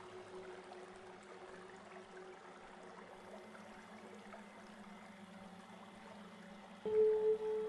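Quiet ambient meditation soundtrack: a soft, water-like hiss with faint low held tones. About seven seconds in, a loud steady pure tone near 432 Hz sets in abruptly and holds.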